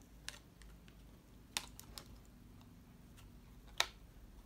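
A few scattered small clicks and taps of acrylic diamond-painting keychain pieces and metal keyring clasps being handled and set down on a wooden table, the loudest click near the end.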